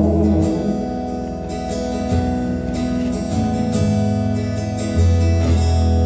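Live folk band music: a fiddle and plucked strings playing over a held low drone, the notes changing a few times.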